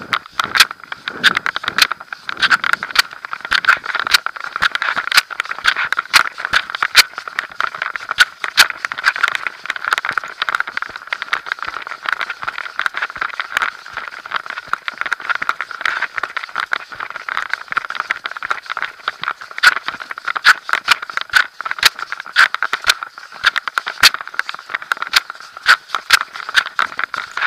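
Constant rattling, rubbing and clicking of a girth-mounted Drift HD170 Stealth action camera, its housing and mount knocking against the girth as the horse moves, over a steady hiss.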